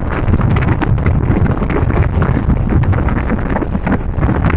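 Wind buffeting the microphone of a phone filming from a moving car, over steady road noise from the car.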